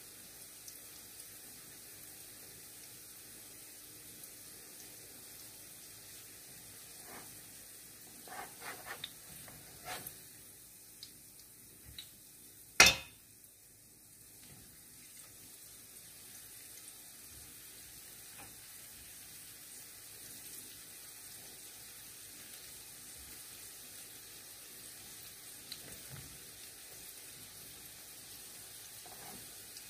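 Okoy vegetable fritters shallow-frying in oil in a nonstick pan, a steady sizzle. A scatter of short clicks from the spatula and spoon working the fritters is heard, with one sharp knock against the pan about halfway through, the loudest sound.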